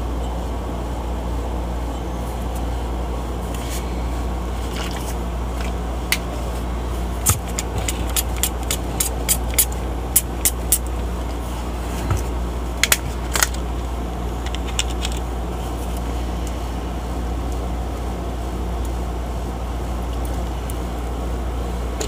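Refrigerator's hermetic compressor running with a steady low hum, with scattered light clicks and taps about a third of the way through and again near the middle.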